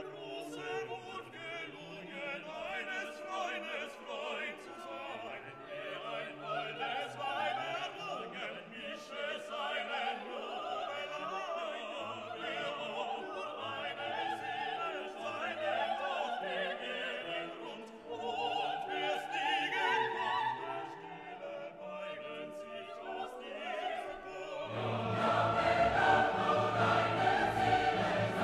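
Background music: a classical vocal piece with operatic singing and orchestra, growing louder and fuller near the end.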